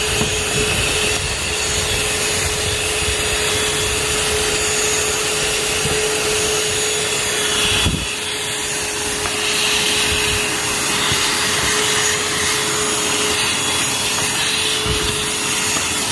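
Shark UltraCyclone Pro cordless handheld vacuum running steadily, a constant motor whine over rushing air; the sound dips briefly about eight seconds in.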